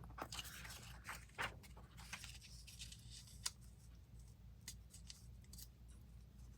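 Faint, scattered rustles and clicks of paper crafting: paper scraps being handled at a desk, over a steady low hum.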